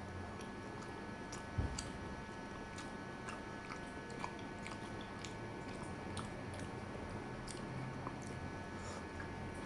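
A man chewing and biting soft cooked eggplant, with scattered wet mouth clicks and smacks. A single low thump comes about a second and a half in, over a faint steady hum.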